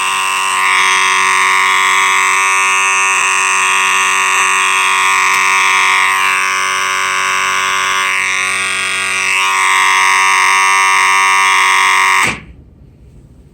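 Two fire alarm horn strobes sounding together: a Faraday 6226HS horn with an angry, harsh tone and a Wheelock AS horn that is ear-piercing, making a very loud, continuous din. It cuts off suddenly about twelve seconds in.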